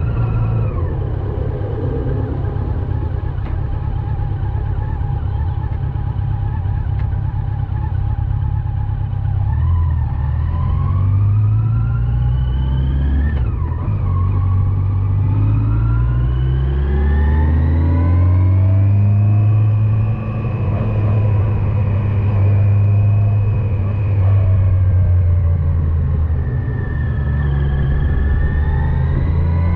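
Yamaha FJR1300 inline-four motorcycle engine on the move: it eases off at the start, then pulls up through the revs. The pitch drops suddenly at a gear change about halfway through, then climbs again to a steady cruise, with another dip and rise near the end.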